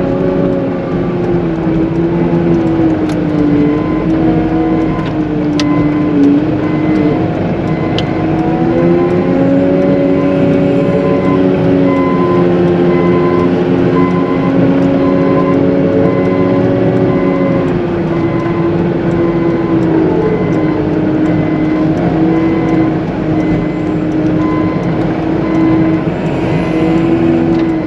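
Caterpillar 906M compact wheel loader's diesel engine running as it pushes slush, its pitch rising and falling with the throttle. A faint, evenly repeating beep sounds through much of it.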